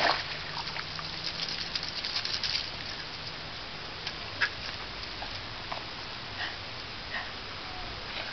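A splash as a wet Shiba Inu heaves itself out of a garden fish pond, then a second or so of quick, light pattering from water dripping off it onto the paving, followed by a few scattered faint taps.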